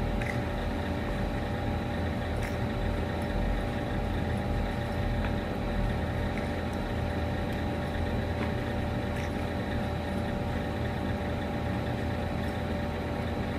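Steady machine hum, a low rumble with a few faint steady tones above it, with a few faint clicks from small things being handled.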